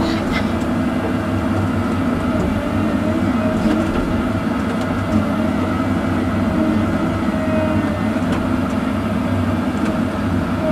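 Cat 309 excavator's diesel engine running steadily under work, its pitch wavering a little as the hydraulics are loaded.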